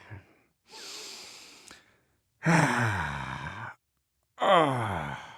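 A man's exaggerated 'dad noises': a breathy exhale, then two long groaning sighs, each falling in pitch.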